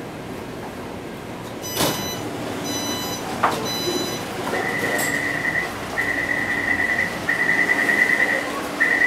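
Taipei Metro C381 train at a station stop: a chime sounds and the train and platform screen doors slide open with a click, then a high electronic beep sounds in four stretches of about a second each.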